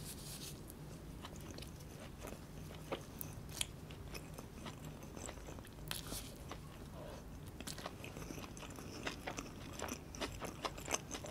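Close-miked eating of a mouthful of murtabak, the meat-and-egg-stuffed pan-fried bread: faint chewing and biting with scattered small crunches and mouth clicks.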